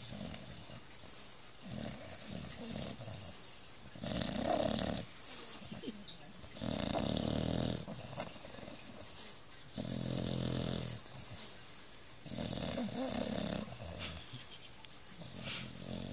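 A pet asleep and dreaming, snoring: four loud, drawn-out snores about three seconds apart, with softer breaths between them.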